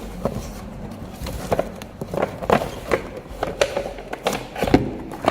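Toy RC off-road car driving over rough ground: irregular clattering knocks from its wheels and plastic chassis, about two or three hits a second.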